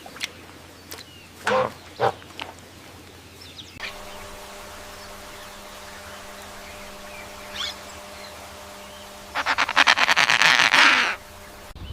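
Animal calls: a few short cries early, then a rapid pulsing trill lasting a little under two seconds near the end, over a faint steady hum.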